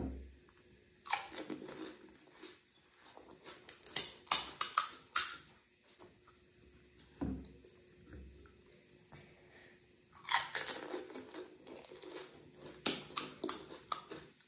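Crisp, hollow pani puri shells crunching and crackling close to the microphone as they are cracked open and chewed, in four short clusters of crackles: about a second in, around the middle, and twice near the end.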